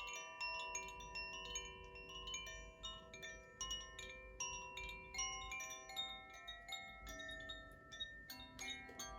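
Koshi chimes, a bamboo-tubed wind chime with tuned metal rods, ringing in sound healing. New notes are struck two or three times a second, and each one rings on and overlaps the others.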